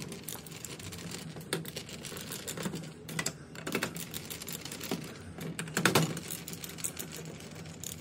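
Hand screwdriver backing small screws out of a hard drive's metal mounting bracket: light, irregular clicks and metal ticks, with a few louder clicks, the loudest about six seconds in.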